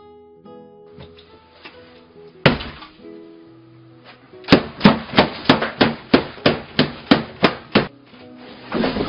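One sharp bang, then a quick run of about a dozen loud bangs, some three a second, of something being slammed against a table. Light music plays beneath.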